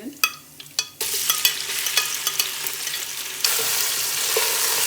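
A few light clicks, then about a second in a loud sizzle starts as ground onion goes into hot oil with cumin seeds, with a spoon knocking and scraping in the pan as it is stirred. The sizzle gets louder again past the halfway point.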